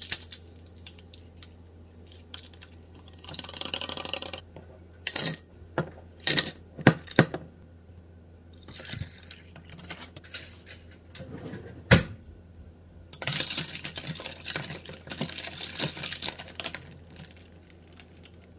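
Making an iced drink in a double-walled glass: ice cubes clinking into the glass and water poured from a plastic bottle. There are several sharp clinks and one heavy knock about twelve seconds in, then a longer stretch of pouring.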